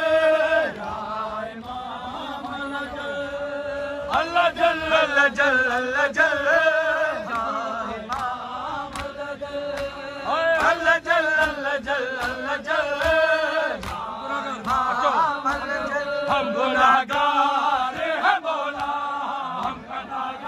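Men's voices chanting a Shia noha together in a loud, sung lament. Sharp slaps of hand-on-chest matam strike in a steady beat under the chant.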